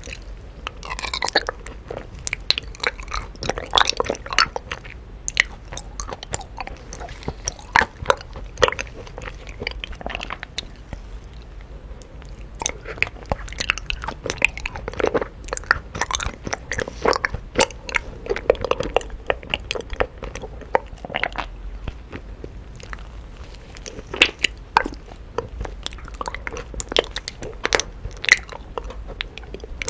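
Close-up sounds of a person biting and chewing honeycomb: irregular sticky, crackling crunches and wet chewing clicks that keep coming without a break.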